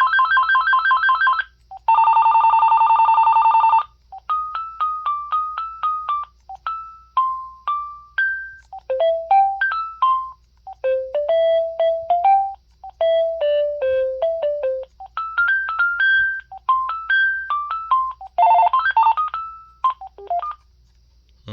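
AT&T E6012B cordless phone handset playing its ringers one after another: first two electronic warbling trill rings, then a run of beeping single-note melodies.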